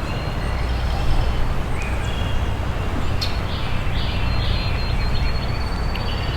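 Wind buffeting the microphone: a steady low rumbling rush. A few faint, short high bird chirps sound through it in the middle.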